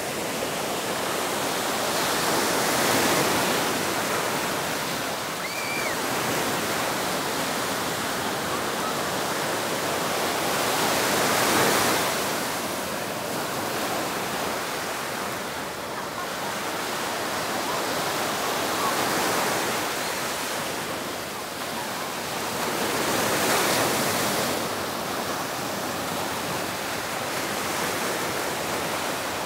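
Waves breaking on a sandy beach, the wash of surf swelling and fading every few seconds.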